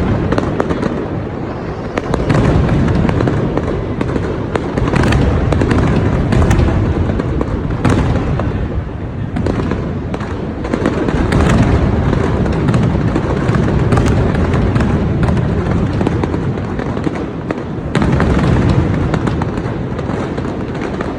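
Fireworks display: a continuous barrage of deep booming bursts overlaid with sharp crackling pops, the loudness swelling and easing every few seconds.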